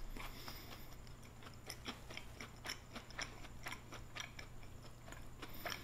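A person chewing a bite of cinnamon churro close to the microphone: faint, irregular crunchy clicks a few times a second.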